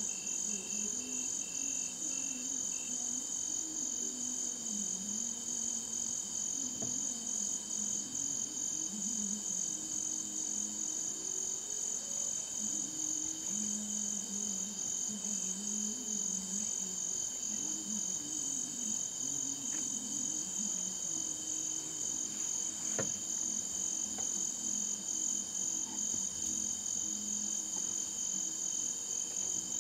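Night insects chirring: a steady, high-pitched, rapidly pulsing trill, with faint low wavering calls underneath.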